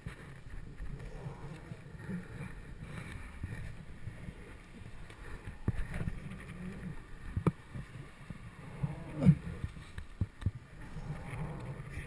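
Wind rumbling and buffeting over a helmet-mounted action camera's microphone as the rider swings on a rope swing. Several sharp knocks and clicks come from the swing gear in the second half, the loudest about nine seconds in.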